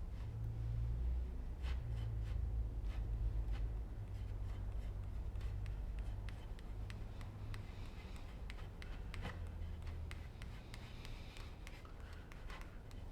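Light scraping and rubbing with many scattered small clicks as hands work glue and wooden boards, over a steady low hum.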